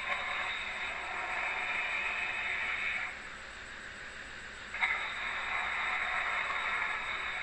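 Acrocanthosaurus dinosaur sound effect: two long, hissing roars of about three seconds each, the second starting about five seconds in with a sharp onset.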